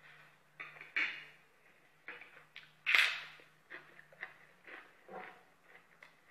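A person eating close to the microphone: short, irregular chewing and lip-smacking sounds, with a sharp, louder click about three seconds in.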